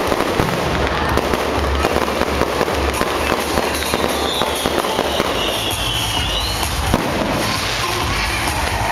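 Fireworks display: a dense, continuous crackle of many bursts and pops from exploding shells, with a high whistle gliding down about halfway through.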